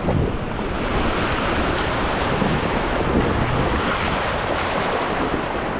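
Rushing white water of river rapids, a steady noisy rush, with wind buffeting the microphone.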